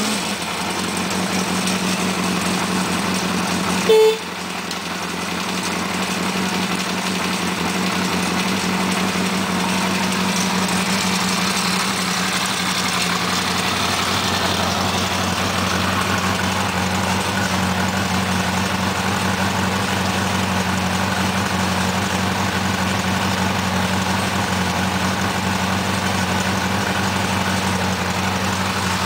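1976 Honda CB400F Super Sport's air-cooled inline-four engine idling steadily just after being started. A short horn beep about four seconds in.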